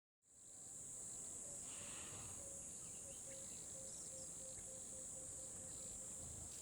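Crickets chirping in a steady, faint, high-pitched drone, coming in just after a brief gap of silence at the start.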